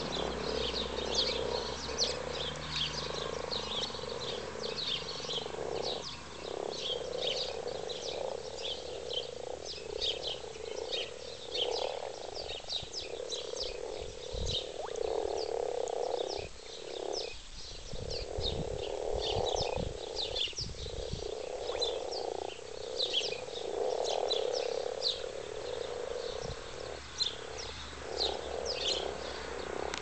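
A breeding chorus of many common frogs: a continuous, pulsing low croaking from males calling during spawning. Quick high chirps run steadily over the chorus.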